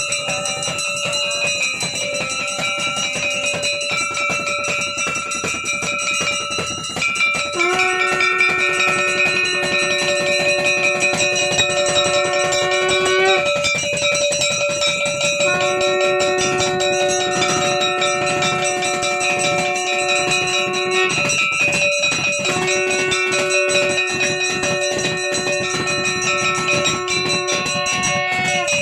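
Temple bells ringing rapidly and without a break during a camphor aarti, loud and steady, with three long held notes sounding over the ringing, the first about a quarter of the way in.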